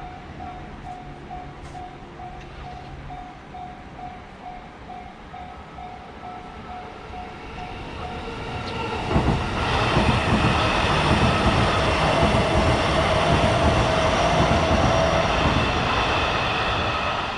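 A level crossing's warning bell rings in a steady ding-ding, about two strokes a second. About nine seconds in, a train arrives and passes loudly, its rumble and wheel noise covering the bell until near the end.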